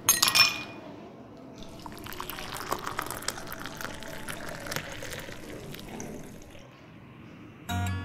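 Ice cubes dropped into a cut-glass tumbler, clinking and ringing at the start, then a dark soft drink poured over the ice for several seconds with a fine crackling, tapering off near the end. Acoustic guitar music comes in just before the end.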